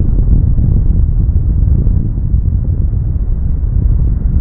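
Airbus A330 twin-engine jet airliner at take-off thrust: a loud, steady low rumble.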